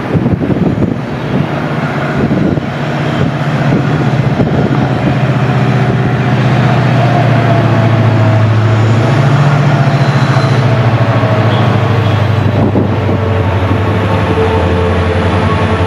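A WDP4 (EMD GT46PAC) diesel locomotive's two-stroke 16-cylinder EMD 710 engine running under power as the train approaches. It is a deep, steady drone that grows louder over the first few seconds and rises slightly in pitch about halfway through.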